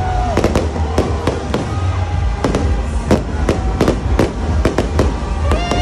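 Fireworks going off: a rapid, irregular run of sharp bangs and cracks, several a second, over a steady low rumble. Near the end a steady pitched tone sounds along with them.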